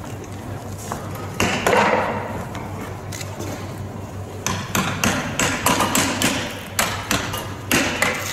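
Hammer blows on wood as the actor playing Jesus is nailed to the cross: a few spaced strikes at first, then steady blows about two a second from about halfway through.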